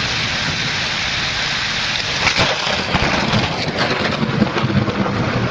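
Heavy rain pouring in a thunderstorm, a steady dense hiss, with a low, uneven rumble building from about two seconds in.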